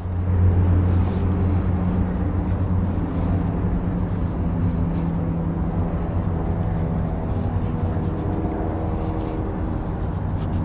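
Steady low engine drone with a stack of overtones, holding an almost constant pitch.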